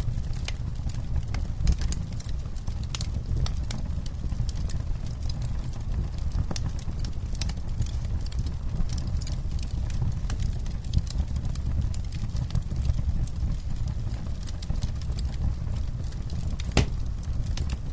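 Campfire burning and crackling: irregular sharp pops and snaps over a steady low rumble, with one louder pop near the end.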